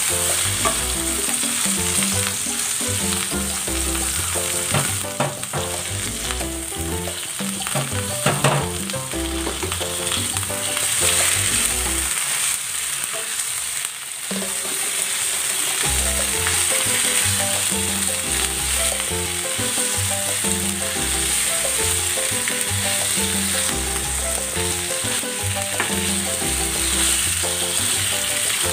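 Pork slab searing in hot oil with sautéed garlic and onion in a nonstick frying pan: a steady sizzle. Scrapes and knocks of a plastic spatula sound as the meat is turned.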